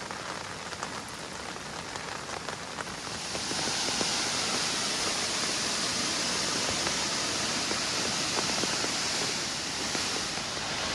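Running water splashing steadily, growing louder about three and a half seconds in.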